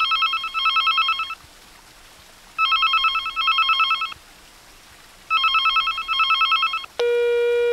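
Telephone ringing three times, each ring a fast electronic trill lasting about a second and a half. Near the end comes a single steady voicemail beep about a second long, the signal that the machine has started recording a message.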